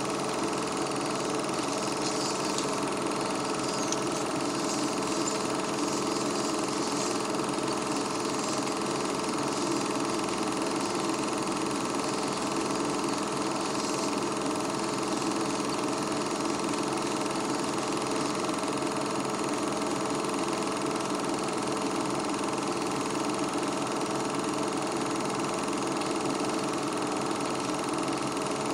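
Film projector running with a steady mechanical whirr.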